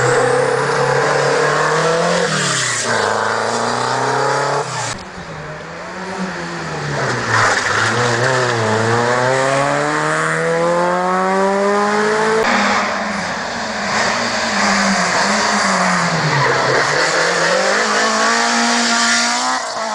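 Rally cars passing one after another at speed on a tarmac stage. Their engine notes climb hard under acceleration and drop sharply at gear changes and lift-offs.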